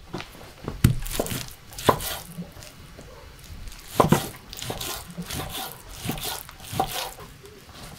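A kitchen knife cutting raw meat into chunks on a wooden cutting board. The blade knocks on the board in irregular strokes, a few of them sharper and louder than the rest.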